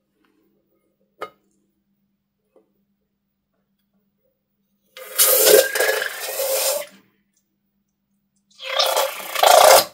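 Slime gushing out of the snipped tip of a balloon into a bowl of slime, in two noisy pours of about two seconds each, the second near the end. A single sharp click about a second in.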